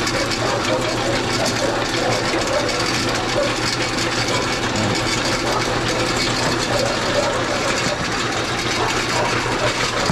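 Homemade belt-driven meat grinder powered by a 3-horsepower electric motor, running steadily while grinding raw pork.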